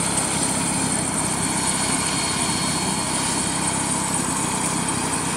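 Air-ambulance helicopter running on the ground, its turbine and rotor making a steady, unchanging noise.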